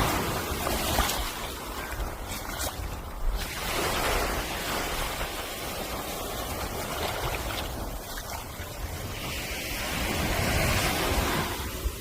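Surf washing up a beach, the rush of water swelling and fading several times, with wind rumbling on the microphone.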